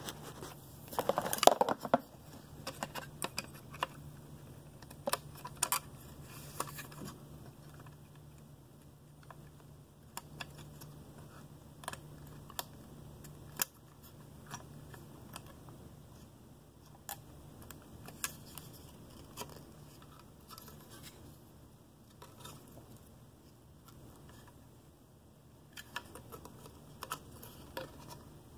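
Scattered small plastic clicks and handling rattles as connectors and ribbon cables are pushed into a BMW CAS3/4 tester by hand, with a louder clatter about a second in as the phone camera is set down.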